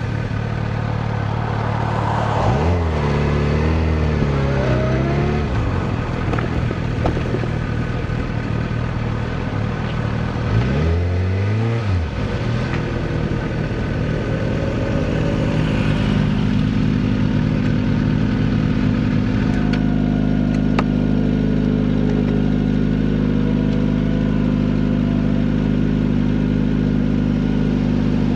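Sport bike engine running under way, the revs rising and falling twice in the first half, then holding steady at an even engine speed.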